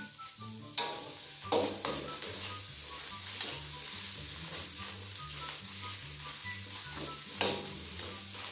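Spice paste sizzling as it fries in a steel wok, while a metal spatula stirs and scrapes it around the pan. Sharper scrapes of the spatula against the wok come about a second in, twice near the two-second mark, and again near the end.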